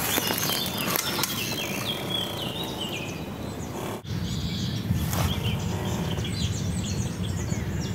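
Songbirds singing: a run of short falling notes in the first few seconds, then many quick high chirps, over a steady low noise in the second half. The sound drops out for an instant about halfway through.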